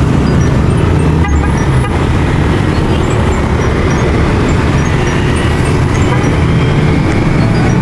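Street traffic noise of motor scooters and cars running close by, with a steady low rumble of wind on the microphone of a moving bicycle.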